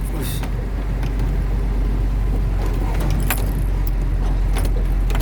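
Truck engine running with a steady deep drone while the truck drives through floodwater, with a few sharp rattles or clicks.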